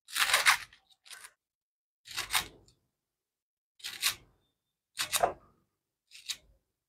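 Kitchen knife slicing through a bunch of green onion leaves held in the hand, about six short, crisp, crunchy cuts at uneven intervals, roughly one a second.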